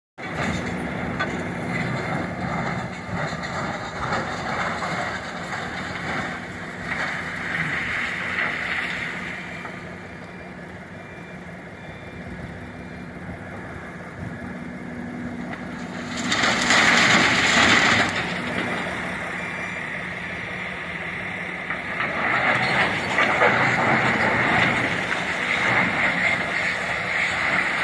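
Heavy diesel machinery at work: a Volvo 480 excavator running and digging while it loads rock into a Volvo tipper truck, with a steady engine drone. It swells into a loud rush for about two seconds around the middle and grows louder again near the end.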